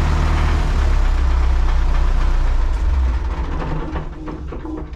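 Tractor diesel engine idling steadily in the cab, then dying away about three seconds in as it is shut off.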